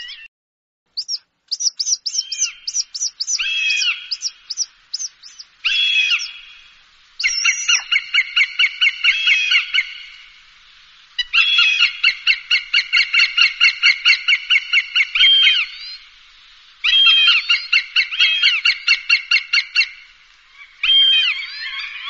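Hawk calls on a bird-scaring recording: runs of rapid, high, repeated call notes, several a second, lasting a few seconds each with short gaps between the runs.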